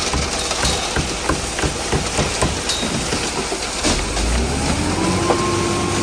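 Concrete mixer truck running as wet concrete pours down its chute, with a run of short clattering knocks for the first few seconds. About four seconds in, the engine revs up and holds a steady higher note.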